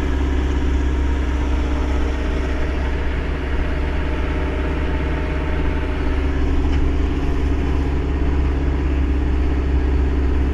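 Truck engine idling steadily in stopped traffic, a constant low rumble with an even hum.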